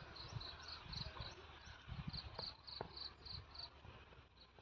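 Faint insect chirping: a steady run of short high chirps about four a second that breaks off briefly near the end, over scattered soft low thumps.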